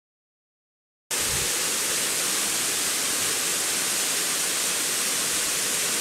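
Steady rush of water from a narrow waterfall cascading down a rock face into a shallow stream, starting abruptly about a second in.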